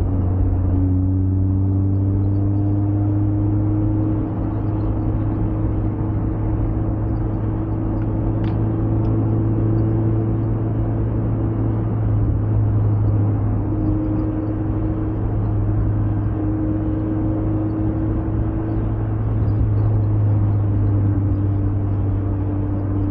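Mazda MX-5 four-cylinder engine running steadily at cruising speed, with tyre and road noise underneath.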